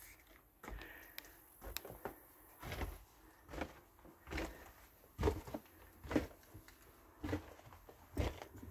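Footsteps walking at a steady, slow pace, about one step a second, each step a short knock.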